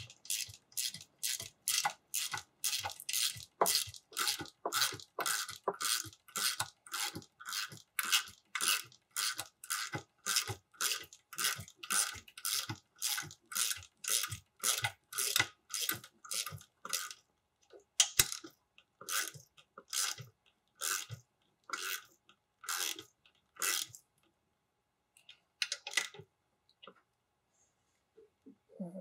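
Hand ratchet wrench being swung back and forth to run a bolt in: a fast even series of short ratcheting strokes, about two or three a second. About two-thirds of the way through the strokes slow to roughly one a second and then stop.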